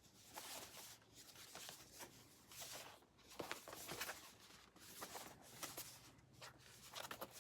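Faint rustling and light clicks of boxed bobbleheads and packaging being handled, a scatter of small, irregular knocks and scrapes.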